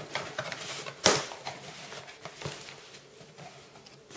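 Cardboard shipping box being opened by hand: the flaps rustle and scrape, with one sharp crack about a second in and a few lighter knocks after it.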